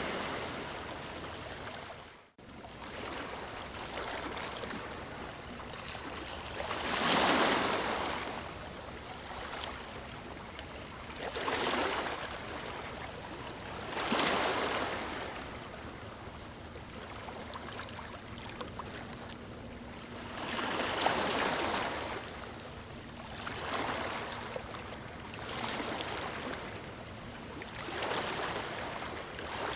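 Ocean waves breaking and washing up a beach, swelling and ebbing in about seven surges, the loudest about seven seconds in. The sound cuts out for a split second about two seconds in.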